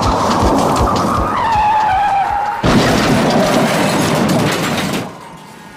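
Car tyres screeching in a skid, the squeal sliding down in pitch, then a sudden loud car crash a little under three seconds in, followed by about two seconds of crashing debris that stops abruptly.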